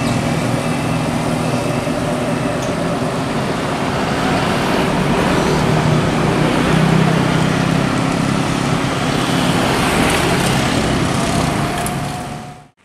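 Steady road traffic: motorcycle engines and an approaching intercity bus's engine hum, with tyre noise. The sound drops out sharply just before the end.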